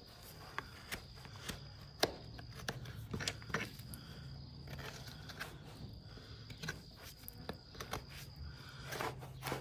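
Irregular sharp clicks and short scrapes of farrier's tools working a horse's hoof during trimming.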